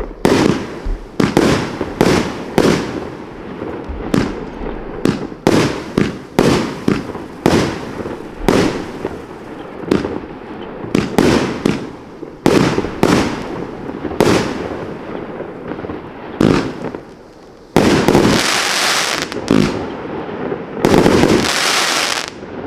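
A consumer firework, Panda Fireworks' "Giant Lizard", firing a rapid, uneven series of loud shots and bursts, roughly two a second. Near the end come two longer, dense volleys of about a second and a half each.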